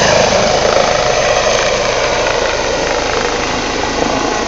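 Rescue helicopter flying off just after lift-off: a steady turbine and rotor noise that slowly gets quieter.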